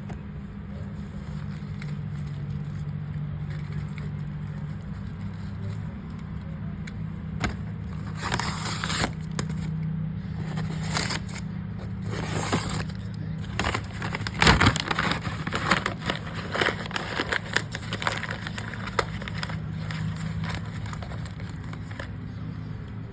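Scrapes, clicks and light rattles of parts being handled during pet door installation work, bunched in the middle with one sharper knock, over a steady low hum.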